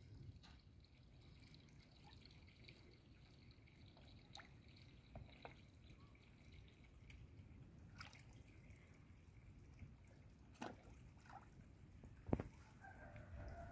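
Small, faint water splashes and drips as fish take a floating piece of bread at the pond surface, a few scattered through, the loudest about twelve seconds in.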